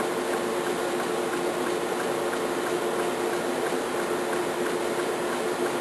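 Pulsed laser welding system running while its XY motion table traces a circle: a steady machine hum with a low tone, and faint regular ticks as the laser fires its welding pulses.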